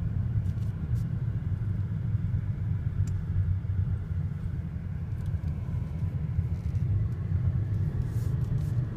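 Inside a moving car's cabin: a steady low rumble of engine and road noise while driving.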